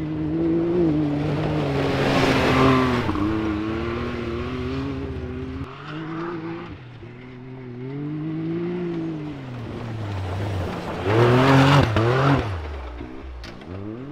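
Turbo Can-Am side-by-side UTV engine running hard, its pitch rising and falling several times as it accelerates and lets off. Two loud surges of hiss, about two seconds in and near the end, sound like loose dirt spraying from the spinning tyres.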